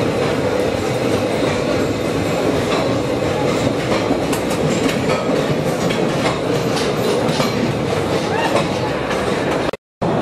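Postojna Cave's open-car electric tourist train running along its track: a steady rumble of wheels on rails, with sharp clicks from about four to eight seconds in. The sound cuts out for a moment near the end.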